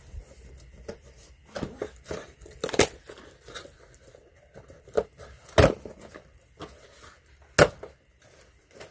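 Cardboard box and its inner packaging being handled and pulled open: scraping and crinkling broken by a few sharp knocks, the loudest about halfway through and about a second before the end.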